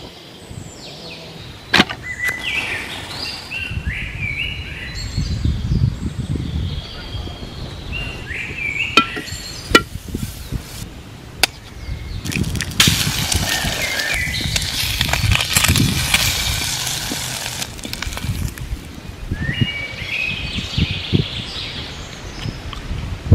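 Songbirds chirping throughout, with several sharp taps and handling sounds. About thirteen seconds in, an egg starts frying in a hot pan: a steady sizzle for about five seconds, then it fades back to birdsong and handling noise.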